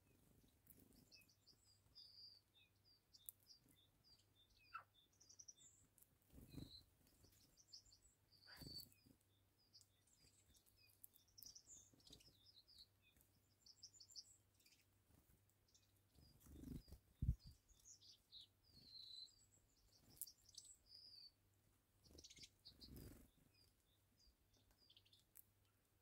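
Faint chirping calls of small birds, many short high notes scattered throughout. A few soft low thumps break in, the loudest about seventeen seconds in.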